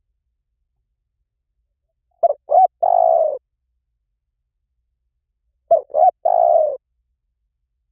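Spotted dove cooing: two identical phrases about three and a half seconds apart, each two short coos followed by a longer one. It is a recorded song played back to train captive doves to call in reply.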